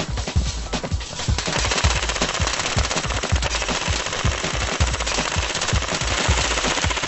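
UTG MP5 A4/A5 airsoft electric gun firing in rapid full-auto bursts over background music.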